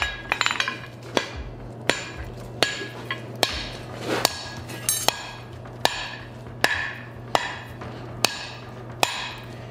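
Blacksmith's hammer striking a red-hot 3/4-inch square mild steel bar on the anvil, steady blows roughly one every three-quarters of a second, each with a short metallic ring. A quick patter of light taps comes just after the start. The blows are bending the bar over the anvil edge and curling it back on itself.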